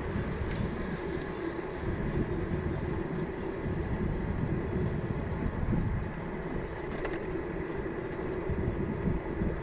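Steady riding noise of an electric scooter moving along a trail: tyre rumble with wind buffeting the microphone.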